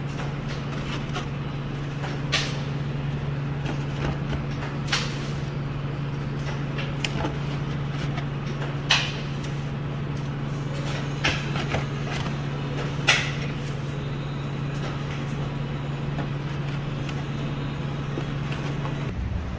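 Steady low hum of shop equipment, with a few sharp clicks and taps from metal tongs and a paperboard donut box as mochi donuts are packed. The hum stops just before the end.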